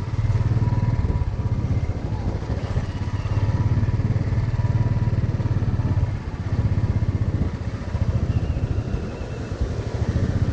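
Motorcycle engine running steady and close, easing off briefly about six seconds in and again near nine seconds.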